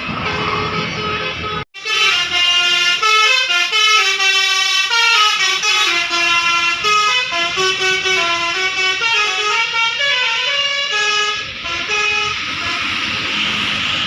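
A bus's Basuri multi-trumpet musical air horn playing a stepping melody of loud, brassy tones after a sudden cut about two seconds in. Around eleven seconds in, the tune gives way to a steady rushing noise.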